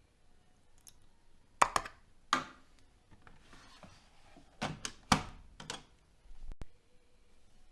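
Washing machine giving a string of irregular sharp knocks and thunks, with a brief hiss in the middle and a dull thud near the end.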